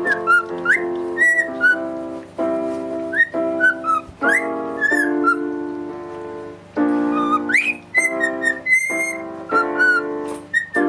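A parrot whistling short notes with quick upward swoops, with small high chirps mixed in, over keyboard music that plays held chords changing every second or two.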